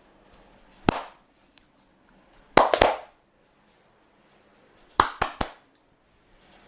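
Sharp slaps of a barber's hands striking the body during a massage: a single slap about a second in, then two quick runs of about three slaps each.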